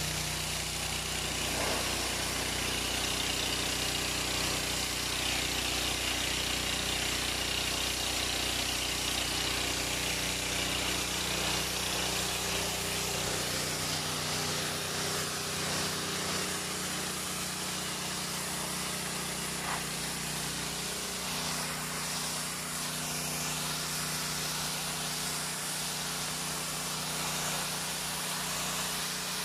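Ferrex petrol pressure washer running steadily, its small engine humming under the hiss of the high-pressure water jet striking wet concrete pavers. The low engine hum weakens a little about halfway through.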